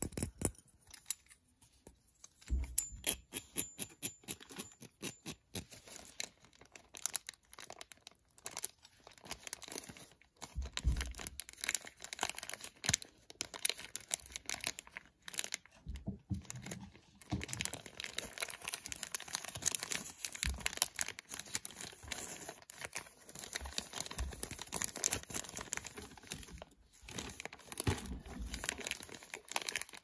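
A clear plastic packaging bag is crinkled and crackled by hand, with rapid fingernail taps and clicks on a small plastic device and a few soft thumps of handling.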